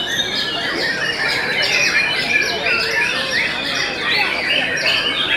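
Several white-rumped shamas singing at once, a dense, unbroken chorus of overlapping whistles and chirps.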